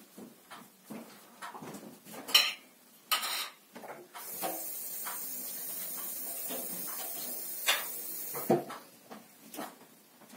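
Light clicks, taps and knocks of small items being handled on a table, with a steady high hiss lasting about four seconds in the middle.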